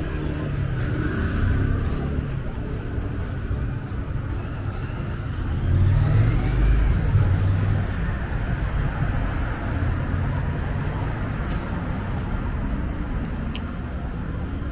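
Road traffic on a busy city street, a steady rumble of engines and tyres that swells about six seconds in as a vehicle passes close.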